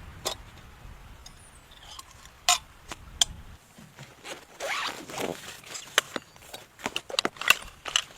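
A tent zipper being worked, with a drawn zip sound about halfway through among scattered clicks and knocks. A low wind rumble runs under the first few seconds and then stops.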